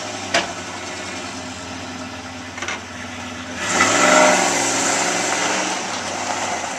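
Car engine running steadily, then revving up louder about four seconds in before settling back.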